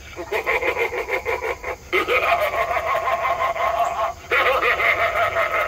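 Spirit Halloween Young Crouchy animatronic playing its sound track through its small built-in speaker at full volume: a distorted, voice-like growl in three drawn-out stretches, the first with a fast pulsing texture, with short breaks about two and four seconds in.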